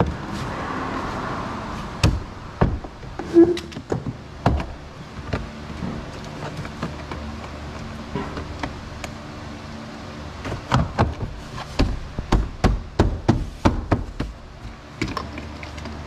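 Hand work on a car door: irregular knocks and clicks, with a quick run of them in the second half, over a steady low hum.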